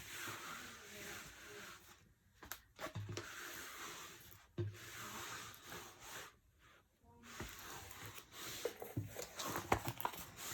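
Soft rustling and rubbing of a large rolled diamond-painting canvas being handled and flattened out, with a few light knocks. Near the end the handling turns to sharper crinkling.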